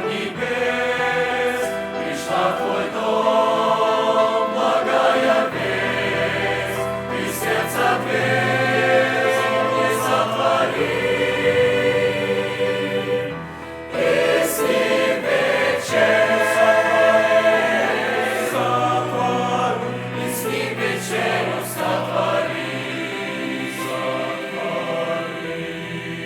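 Church choir singing a slow hymn in sustained harmony, with a brief break about halfway through and the sound gradually fading near the end.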